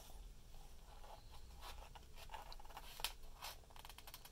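Faint handling noise from a held picture book: soft paper rustles and scattered light clicks, with one sharper click about three seconds in.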